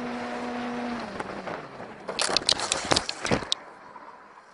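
Vehicle crash: a steady engine note drops away in pitch, then a rapid cluster of sharp impacts and scraping about two seconds in, lasting about a second, before the sound fades.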